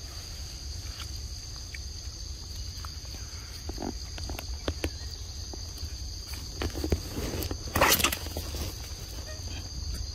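Young macaque feeding on a mango held out by hand: scattered short clicks and rustles, with one louder brief noisy burst about eight seconds in. A steady high-pitched insect drone runs behind.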